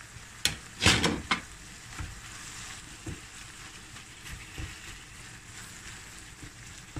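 A wooden spatula stirring chicken mince in a nonstick frying pan, with a few sharp knocks and scrapes against the pan in the first second and a half, then softer scraping over a light, steady sizzle.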